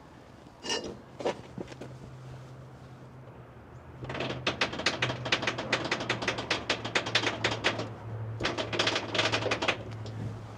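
Hand ratchet wrench clicking rapidly in two long runs, about nine clicks a second, after a couple of single clicks near the start. A steady low hum sits underneath.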